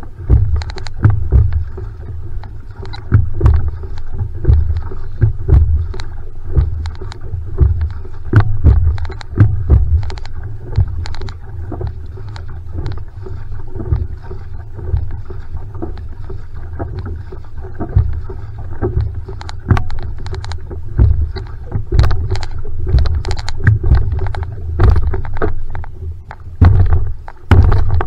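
Outrigger canoe (va'a) being paddled at a steady pace with a Braca-Sport paddle: rhythmic strokes about once a second. Each stroke gives a low thump carried through the hull and a short splash, over water rushing along the hull.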